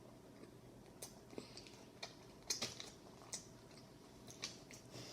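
Close-up eating sounds from chewing a fried chicken sandwich: scattered soft crunches and wet mouth clicks, several short ones spread over a few seconds.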